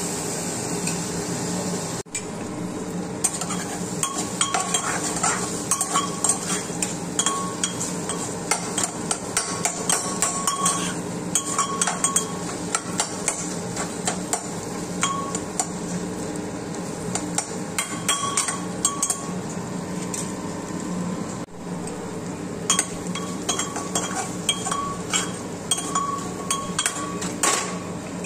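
A metal spoon stirring masala in a metal pressure-cooker pot, scraping and knocking irregularly against the pot's sides and base. A steady low hum runs underneath.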